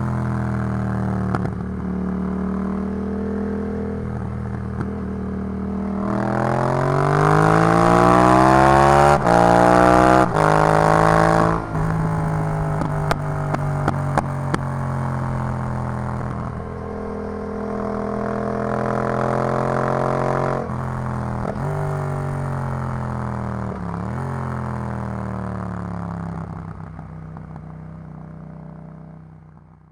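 Yamaha MT-07's parallel-twin engine running through an Arrow full exhaust system, its pitch rising as it accelerates from about six seconds in to about eleven, then dropping and holding steadier. The sound fades out near the end.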